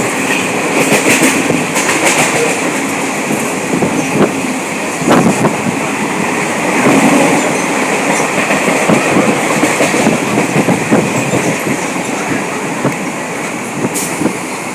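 Train running on the rails: a steady rumble with the irregular clatter of wheels over the track.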